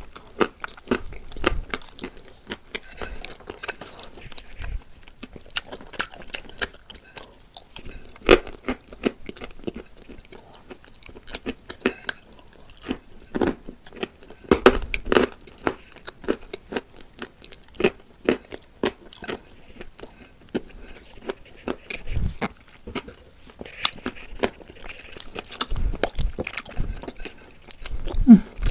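Close-up biting and chewing of wet blue clay: crisp crunches and cracks at irregular intervals, a few of them much louder, with wet mouth sounds between.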